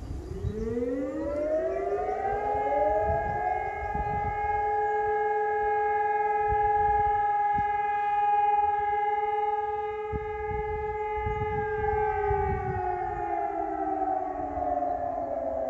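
A siren winding up in pitch, holding a steady two-tone wail for several seconds, then starting to wind down near the end, over low gusty rumble.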